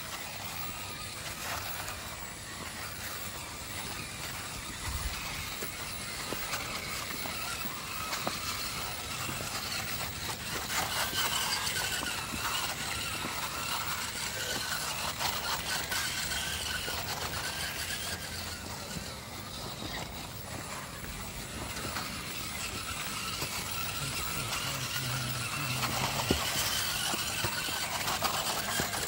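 The Hobbywing Fusion Pro brushless motors of a motor-on-axle RC rock crawler whine as it inches up stone steps, the pitch wavering with the throttle. Scattered clicks are mixed in.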